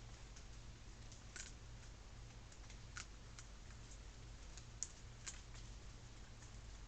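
Steady faint low hum and hiss from a trail camera's recording, with a few short, sharp clicks scattered through it, the loudest just before the five-second mark.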